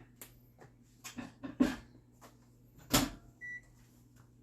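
A dish being loaded into a microwave oven, with several knocks and clicks. The door shuts with a loud thud about three seconds in, followed by one short, high keypad beep as the cooking time is entered.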